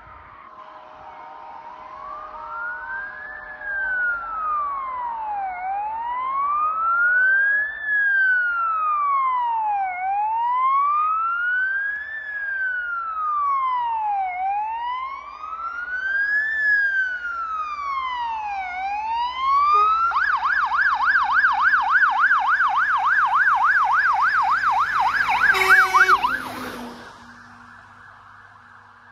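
Fire engine sirens on an emergency run: a slow wail rising and falling about every four seconds, switching to a fast yelp about two-thirds of the way in. A brief, louder burst comes just before the sirens cut off near the end.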